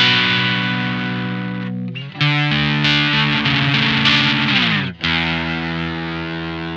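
Electric guitar (Squier Classic Vibe 50s Telecaster) through a Maestro Fuzz Tone FZ-M fuzz pedal, playing held low-gain fuzz chords. A new chord is struck about two seconds in and slides down in pitch, and another chord is struck about five seconds in and rings on.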